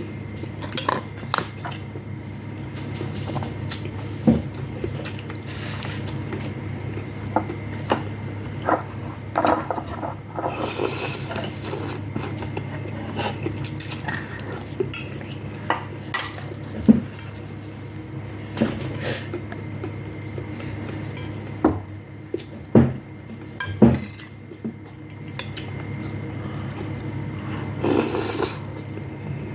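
Spoons and chopsticks clinking and scraping against bowls and plates during a meal of noodles, rice and soup, in short irregular clinks over a steady low hum.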